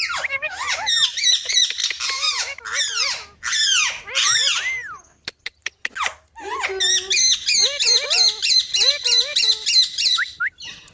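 Pet parrot screeching and squawking in fast runs of harsh calls, a rapid string of repeated shrieks in the second half. The owner takes it for the bird scolding and getting angry. A few sharp clicks fall in the short gap between the two runs.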